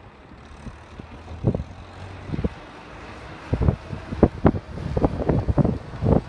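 Steam-hauled train under way behind Caledonian Railway 0-6-0 No. 828, with wind on the microphone. Heavy beats come quicker and louder through the second half.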